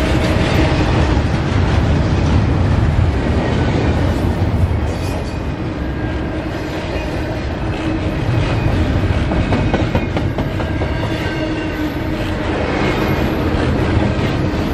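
Double-stack intermodal freight train's well cars rolling past at close range: a steady loud rumble and clatter of steel wheels on the rails, with a faint thin squeal from the wheels now and then.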